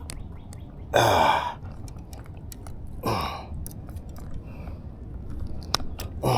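Three short wordless vocal sounds, like grunts or exhales, each falling sharply in pitch, about a second, three seconds and six seconds in, with scattered sharp clicks and knocks of handling in between.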